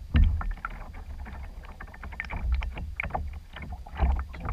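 Canoe being paddled: a wooden paddle dipping and pulling through the water, with scattered small splashes and drips around the hull over a low, steady rumble.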